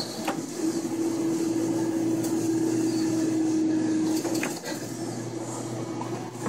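Claw machine's motor running as the claw travels over the prizes: a steady whine that stops about four seconds in, with a few light clicks.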